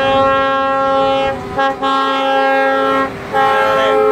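Truck air horns sounding in long, multi-tone blasts with brief breaks about one and a half and three seconds in, as coal-hauling trucks pull out in convoy.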